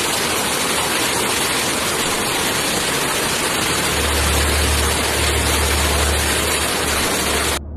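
Muddy floodwater rushing in a torrent over and around a small bridge: a loud, steady roar of water, with a deeper rumble from about four seconds in. It cuts off suddenly near the end.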